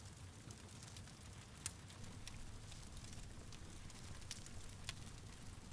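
A small lamp flame crackling faintly: sparse, irregular soft crackles and ticks over a low steady rumble.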